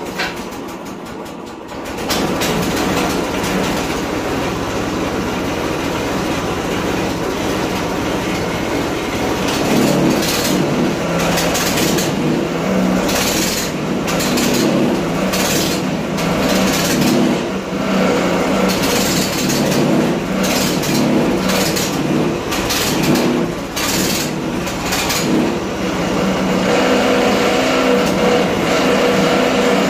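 212cc Predator single-cylinder four-stroke engine on a homemade buggy, running and revved up and down repeatedly while its clutch pulls against the drive. The buggy strains without moving off, which the owner puts down to gearing too high for the engine.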